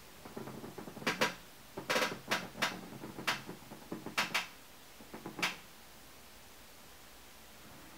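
A run of irregular sharp clicks and knocks, about a dozen over some five seconds, with light rustling between them, like objects being handled and set down.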